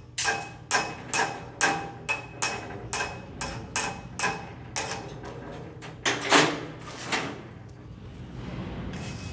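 Hammer striking a welded steel coupon over and over, about two blows a second, each with a short metallic ring; the blows stop a couple of seconds before the end. This is typical of chipping slag off a flux-core weld.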